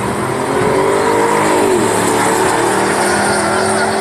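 Drag-racing cars at full throttle down the strip, the engine note loud and steady, its pitch dropping once about a second and a half in.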